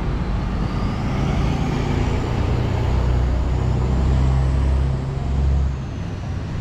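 Motor vehicle running: a steady low rumble, heaviest in the middle, with a faint high whine that rises and then falls.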